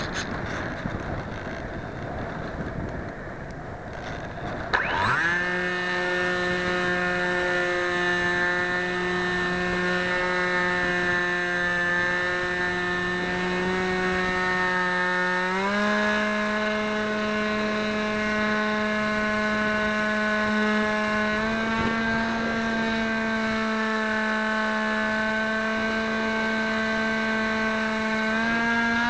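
Wind rushing over an onboard camera on a model aircraft, then about five seconds in the aircraft's motor and propeller spool up sharply into a steady whine. The whine steps up in pitch three times as the throttle is raised.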